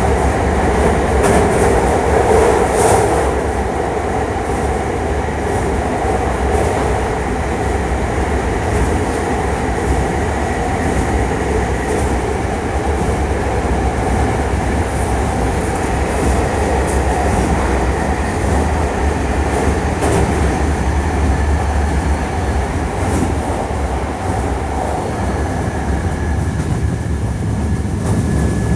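Hankyu 1300 series electric train running at a steady pace, heard from aboard: a continuous rumble of wheels on rail with a few sharp clicks over the track.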